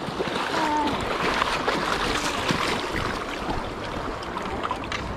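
Steady rush of fast-flowing river water, with a faint voice in the background during the first second.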